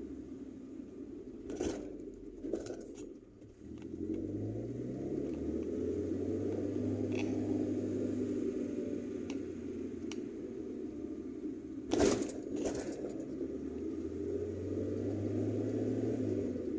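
Car heard from inside the cab driving slowly on a village road: steady engine and road noise, with the engine pitch rising as it picks up speed about four seconds in. Short rattles around the second and third seconds and a loud clattering jolt about twelve seconds in as the car rolls over speed bumps.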